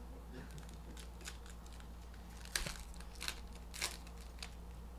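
Trading-card packs and their wrappers being handled and opened: soft crinkling with several sharp clicks, the strongest about two and a half and about four seconds in.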